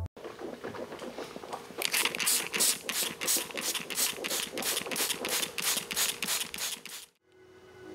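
Hand-pumped trigger spray bottle misting a houseplant: quick squeezes of the trigger, each a short hiss of spray, about four a second, starting about two seconds in and stopping suddenly near the end.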